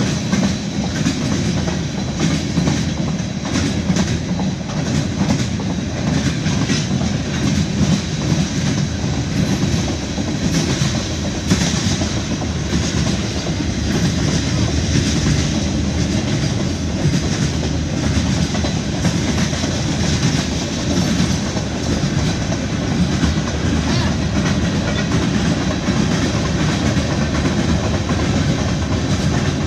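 CSX freight train rolling past, a steady loud rumble of cars on the rails with the clickety-clack of wheels over rail joints.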